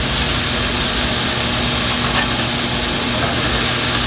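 Chopped tomatoes sizzling in hot oil with ginger, onion and garlic in a deep granite-coated pan, stirred with a wooden spatula that taps the pan a few times. A steady low hum runs underneath.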